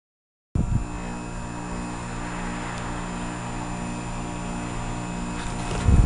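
Amana 3-ton heat pump outdoor unit running in defrost mode, its Copeland scroll compressor humming steadily with several even tones. The hum starts suddenly about half a second in, and there is a louder low rumble near the end.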